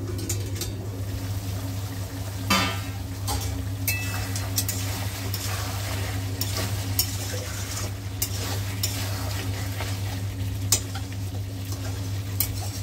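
Marinated chicken pieces sizzling in a steel kadhai while being stirred, the metal spoon and spatula scraping and clinking against the pan in short irregular knocks, over a steady low hum.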